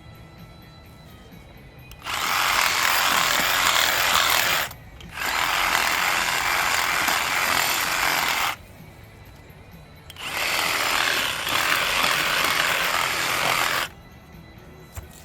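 Reciprocating saw (Sawzall) with a cast-iron blade cutting through a cast iron sewer cleanout pipe, run in three bursts of about three seconds each with short pauses between.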